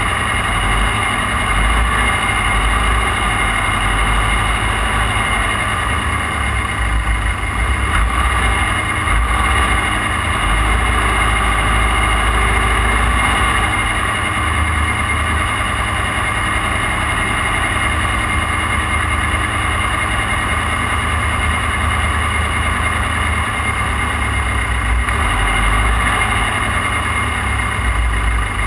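Off-road race car's engine running steadily, with a deep rumble and no distinct revving or gear changes.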